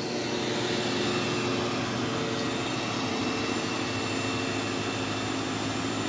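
A new upright vacuum cleaner running steadily as it is pushed over carpet: an even motor hum with a constant high tone.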